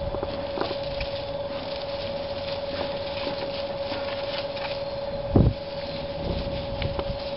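A steady hum held at one pitch, with wind rumbling on the microphone and one dull thump about five and a half seconds in.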